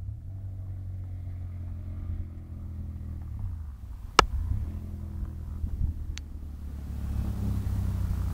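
Ducati 998S L-twin engine breathing through an aftermarket Sil exhaust, heard from the roadside as the bike runs along the road, its pitch sliding down a little and the engine note growing louder near the end. A single sharp crack about four seconds in is the loudest sound.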